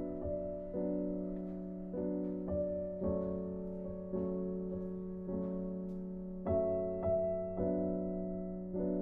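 Gentle background piano music: slow chords struck every second or so and left to ring and fade, over a steady held low note.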